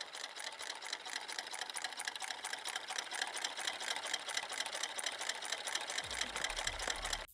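Tin-can Stirling engine running, its wire crank and linkage making a fast, even mechanical clatter. A low rumble joins about six seconds in.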